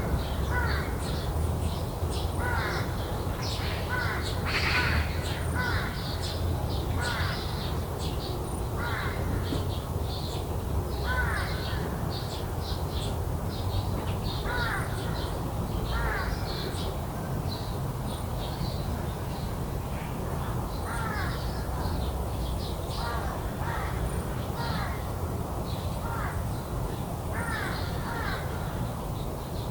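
Corvids calling: short harsh calls, often several in quick succession, repeating throughout over a steady low rumble.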